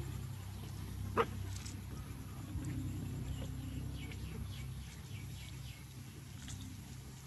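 A single short, sharp animal squeak about a second in, then a quick run of faint high chirps a little past the middle, over a steady low hum.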